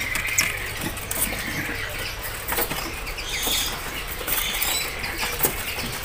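Small caged birds, male minivets, fluttering their wings and moving about in their cages. The sound is an irregular light rustling with scattered clicks and faint short chirps.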